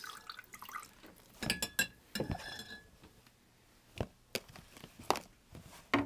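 A metal spoon clinking against glass cups as dye powder is spooned into hot water. There is a cluster of clinks about one and a half seconds in, one ringing briefly, then a few single taps, along with wet drips.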